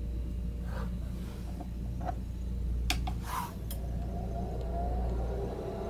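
ACMI MV-9090 300-watt xenon light source being switched on: sharp clicks about three seconds in from the rocker power switch, then a short hiss. After that its cooling fan starts, a faint tone slowly rising in pitch as it spins up, over a steady low hum.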